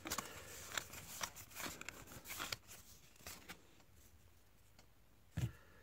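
Faint clicks and rustles of a small stack of trading cards being flipped through by hand, then a soft thump near the end.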